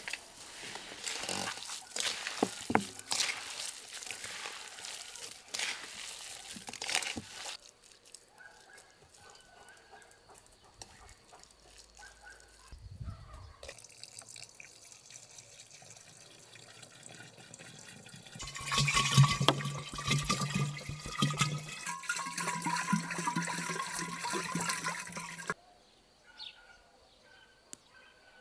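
Water being poured from a large plastic jug into a glass demijohn: a splashing, gurgling stream whose pitch slowly rises as the bottle fills, in two pours in the latter half. Earlier come irregular handling noises and clicks.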